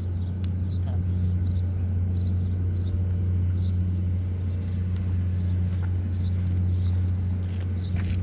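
Steady low machine hum, with short high bird chirps scattered through it and a few sharp clicks near the end.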